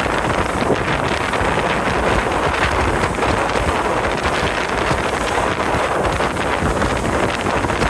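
Steady wind rushing over the microphone aboard a river boat under way, an even loud noise with the boat's running sound beneath it.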